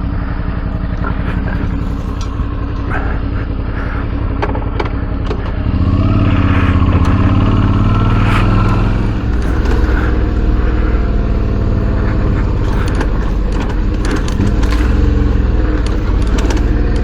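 Motorcycle V-twin engine running, a 2008 Suzuki V-Strom 650 with a Delkevic exhaust, at a steady low speed, then growing louder and heavier about six seconds in and holding there, with scattered light clicks over it.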